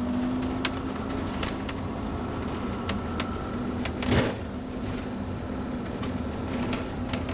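Motorhome running slowly over a rough gravel track, heard from inside the cab: a steady low engine hum with scattered clicks and rattles, and one louder knock about four seconds in.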